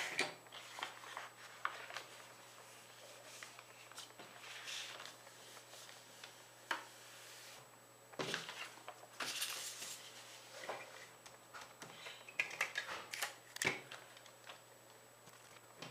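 A sheet of paper rustling and crinkling as it is folded and creased by hand, in scattered irregular bursts with a few light taps.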